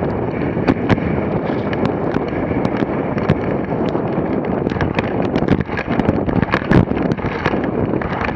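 Dog sled running fast over packed snow: a steady scraping noise from the runners and wind on the microphone, with many irregular sharp knocks and rattles from the sled.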